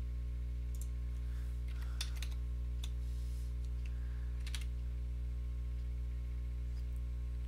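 Steady low electrical hum with a few faint clicks of a computer mouse scattered through it.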